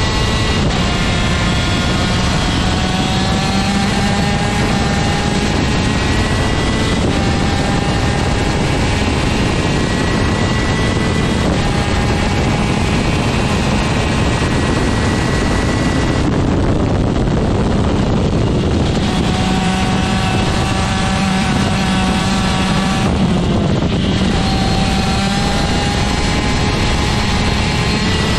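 A 125cc superkart's TM two-stroke engine at racing speed, its revs climbing steadily and dropping back at each gear change, over and over. Twice in the second half it briefly eases off.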